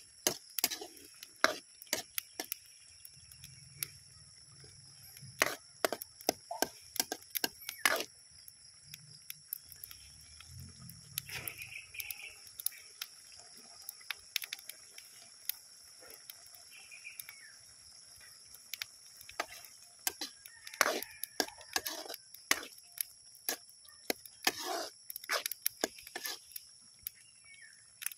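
Metal ladle stirring cooking food in an aluminium pot, knocking and scraping against the pot's sides in irregular clinks, some in quick clusters.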